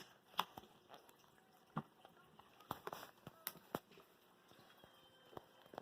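Faint, scattered taps and clicks, about eight in all at irregular spacing, from objects being handled during slime-making.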